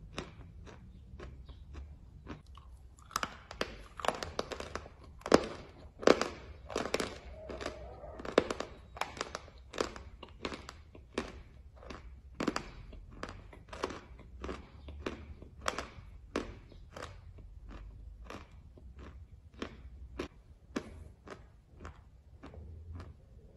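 Close-up chewing of crunchy edible chalk tiles: a steady run of crisp crunches, about two a second, loudest between about three and nine seconds in.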